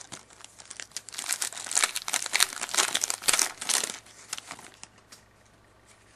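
Plastic-foil wrapper of a 2011-12 Elite hockey card pack crinkling and tearing as it is opened by hand; the rustling crackle peaks in the middle and dies away about five seconds in.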